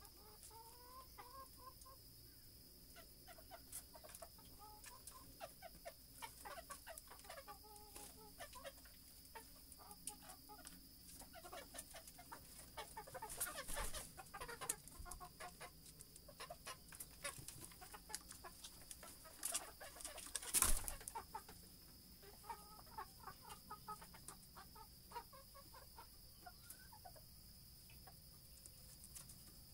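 Rooster clucking in short repeated calls, with one sharp knock about two-thirds of the way through.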